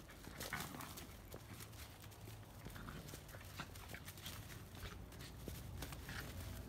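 Two puppies play-fighting on dry ground: paws scuffling and scrabbling, with a few short yips scattered through.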